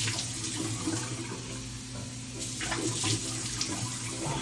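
Tap water running steadily into a sink, a continuous even rush with a steady low hum underneath.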